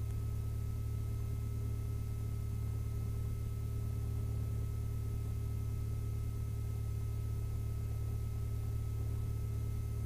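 Lycoming IO-360 four-cylinder engine of a Mooney M-20F idling steadily while it warms up: an even, muffled low drone, with a faint steady whine above it.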